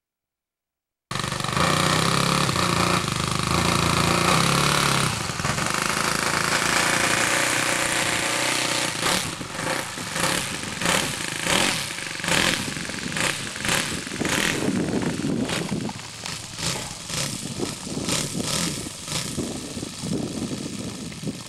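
WWI-style biplane's piston engine running as it taxis on grass, starting about a second in. From about eight seconds in it beats in a regular pulse about twice a second.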